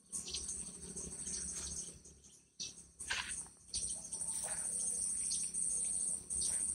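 Insects calling outdoors in a steady, high-pitched, pulsing drone that grows stronger about halfway through, with several short chirps over it.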